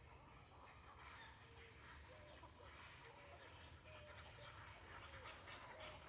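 Faint bird calls at an egret nesting colony: short call notes, one or two a second, with soft chatter. A steady high-pitched buzz runs underneath.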